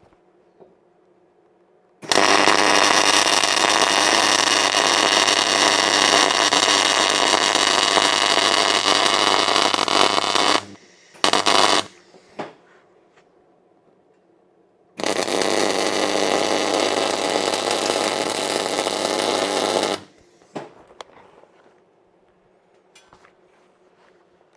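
Electric arc welding on a steel angle-iron bracket: a steady hiss with a low hum under it. There are two runs, one of about eight seconds and one of about five, with a short half-second burst between them, and each starts and stops abruptly.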